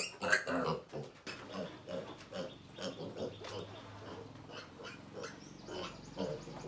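Piglet squealing as it is held up by a hind leg. Loud squeals in the first second give way to a run of shorter, quieter squealing grunts, about three a second, and another loud squeal comes near the end.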